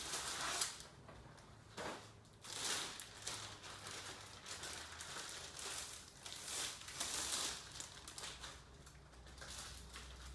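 Packaging crinkling and rustling in irregular bursts as a new cricket bat is handled and taken out of its wrapping.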